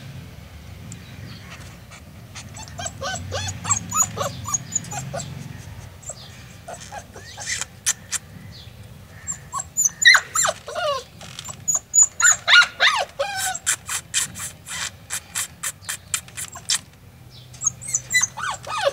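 Golden retriever puppy whining and yelping in many short, high calls, some sliding down in pitch. Through the middle of it come quick sharp clicks and rattles as it paws at the wire bars of its crate.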